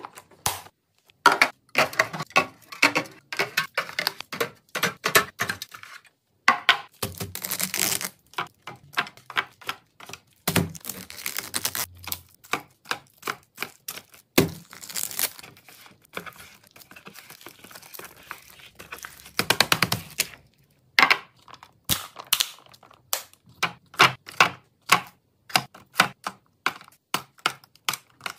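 Restocking ASMR: quick clicks, taps and light knocks of packaged snacks, juice boxes and squeeze pouches being set into clear plastic storage bins, with packaging rustling now and then.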